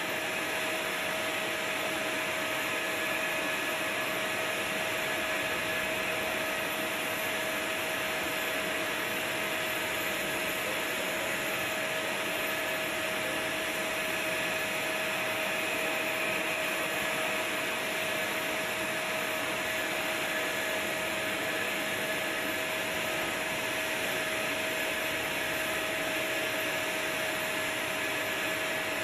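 Steady whine and rushing hiss of turbine-driven aircraft power equipment running without change, with several fixed high tones over the noise.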